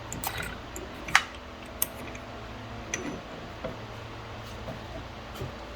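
Light metal clinks and taps as a transfer punch is worked into a drill press, the sharpest click about a second in and another just under two seconds in, with a few softer ones after. A shop fan hums steadily underneath.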